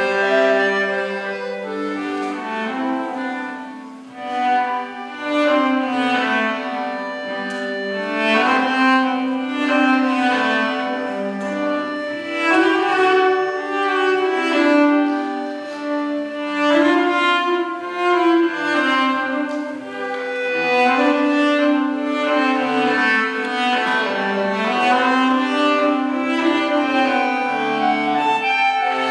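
Cello and chromatic button accordion playing classical chamber music together, the bowed cello line over sustained accordion chords, easing off briefly about four seconds in.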